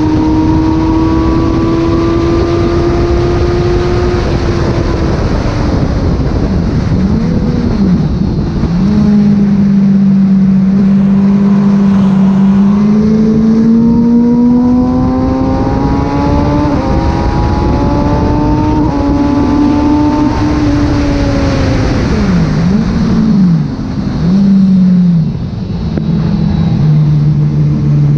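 Kawasaki ZX636 inline-four engine under way on track at part throttle for running in, its pitch climbing and falling as it changes gear, with several quick dips and recoveries near the end. Wind rushes over the microphone throughout.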